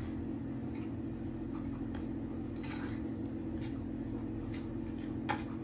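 Stiff buttercream being worked in a glass mixing bowl: faint soft scraping and squishing strokes, with one sharper click near the end. A steady low appliance hum runs underneath.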